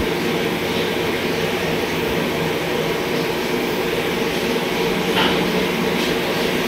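Steady mechanical hum made of several constant tones, with no change in pitch or level.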